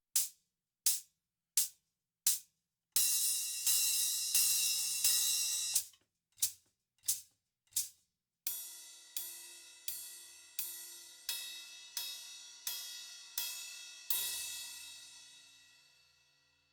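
Low-volume cymbals played alone and heard through microphones. Four short hi-hat strokes are followed by about three seconds of washy, sustained cymbal strokes and three more short strokes. Then come about nine evenly spaced cymbal strokes with a ringing tone, the last one left to ring out and fade.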